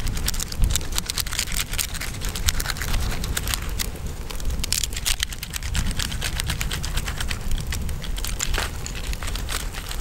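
Knife sawing through the crisp crackling skin of a rolled roast pork belly, giving a steady run of small crunching crackles.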